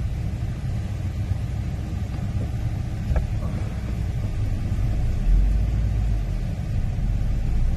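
Low, steady rumble of a petrol motorhome's engine and tyres heard inside the cab while driving, growing a little louder about five seconds in.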